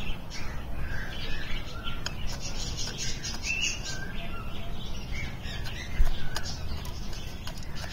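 Small birds chirping over and over, with light taps as a rooster pecks grain from a bowl held to its cage, and a single dull thump about six seconds in.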